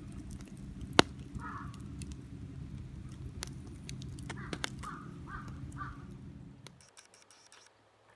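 A bird, crow-like, gives short harsh calls several times over sharp crackling clicks, the loudest about a second in. A low steady rumble underneath drops away about seven seconds in.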